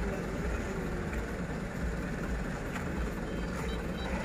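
Diesel engine of a lowered light truck running at low speed as the truck creeps forward, a steady low rumble.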